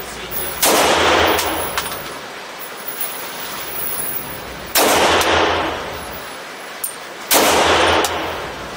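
Three shots from a .357 SIG Sig Sauer P229 Legion pistol fitted with a custom compensator: about half a second in, about five seconds in, and near the end. Each sharp blast rings on for about a second in the echoing indoor range.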